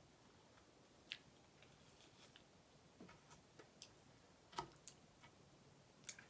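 Quiet eating of cheesecake: about half a dozen faint, sharp mouth clicks and smacks, scattered irregularly, the loudest a little past the middle.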